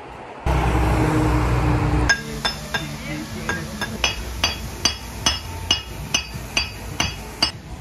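A hammer striking paving stones as they are set, a steady run of sharp ringing blows about two and a half a second. Before it, a loud low rumble lasts about a second and a half.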